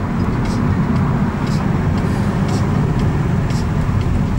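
Steady low rumble of a car driving at speed, heard from inside the cabin: tyre, engine and wind noise.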